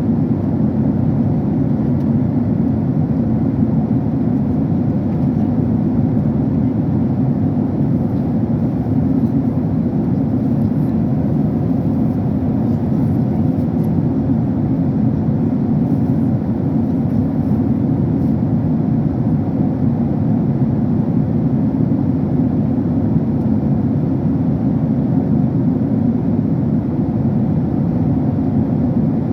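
Steady low drone of an airliner cabin in flight: engine and rushing airflow noise, unchanging throughout.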